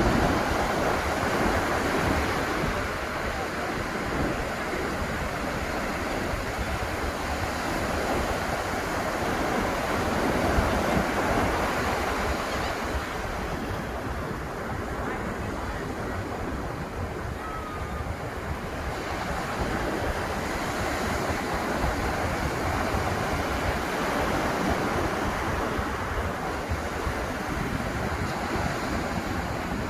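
Atlantic Ocean surf breaking and washing up the beach, a steady rush that swells and eases over several seconds at a time.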